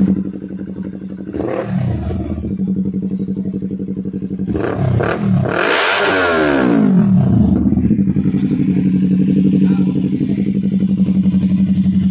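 Yamaha YZF-R3's parallel-twin engine through an Akrapovic full-system exhaust, idling steadily with throttle blips. A short rev comes about a second and a half in, and a bigger rev about four and a half seconds in climbs high and falls back to idle by about eight seconds.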